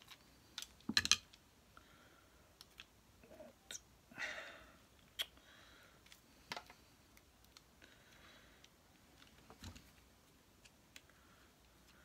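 Scattered small clicks and taps of hands working on a mains plug and its wires, with a louder cluster of clicks about a second in and a short rustle around four seconds in.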